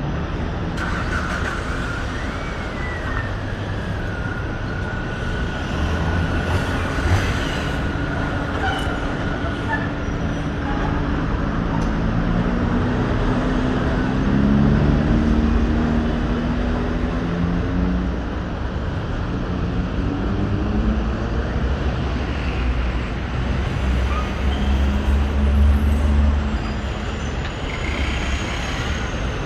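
Road traffic moving through a roundabout: several cars' engines and tyres, with engine notes rising and falling as vehicles slow and pull away. A thin high whine runs through the first third.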